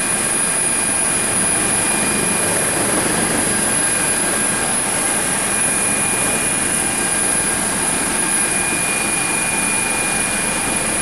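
HH-65C Dolphin helicopter's turboshaft engines and rotors running steadily: a dense, unbroken rumble with a constant high whine over it.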